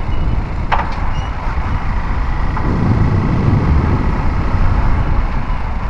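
Motorcycle riding along, its engine running under a heavy, steady rumble of wind on the microphone, with one sharp click just under a second in.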